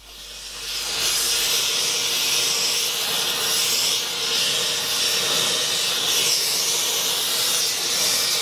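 Oxy-propane torch flame hissing steadily as it heats a joint for silver soldering, swelling up over the first second and then holding even.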